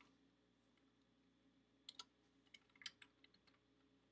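Faint computer keyboard typing: a quick, uneven run of key clicks starting about two seconds in.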